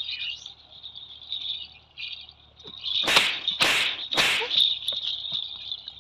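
Crickets chirring steadily, with three short, loud swishing noises about three seconds in.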